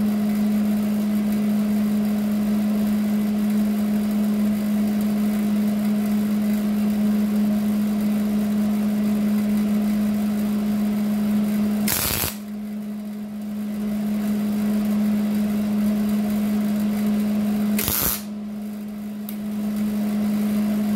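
Wire-feed (MIG) welder welding a thin sheet-steel patch into a rusted rocker panel: a steady buzz with a constant hum under it. Two sharp clicks, about 12 and 18 seconds in, each followed by a couple of seconds of quieter sound.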